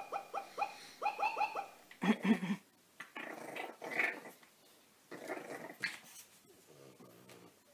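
French bulldog yipping in quick runs of short, high, falling-pitch cries for the first second and a half. About two seconds in comes a loud bark-like burst, followed by rough growling and grumbling from dogs.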